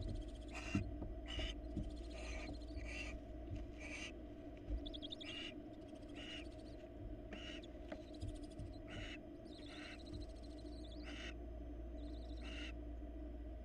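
Barn owls at the nest giving a series of short raspy hisses about once a second, with a few longer rattling screeches among them, over a steady low hum.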